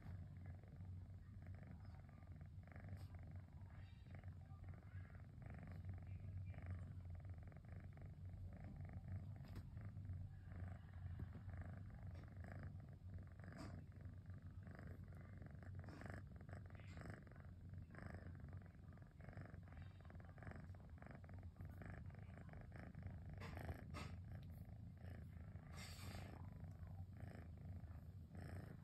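Kitten purring steadily while being stroked: a low, even, motor-like purr.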